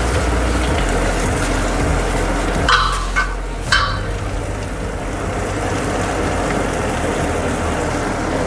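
Sliced onions frying in hot oil in an aluminium pressure cooker: a steady sizzle. About three seconds in come three quick sharp clinks, as the steel plate knocks against the cooker's rim while the onions are scraped off.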